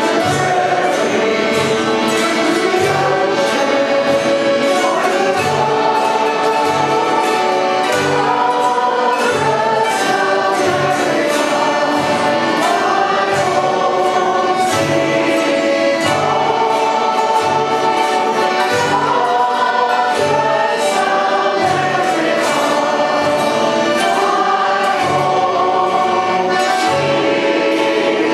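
Background music: choral singing over orchestral accompaniment, with a steady low beat.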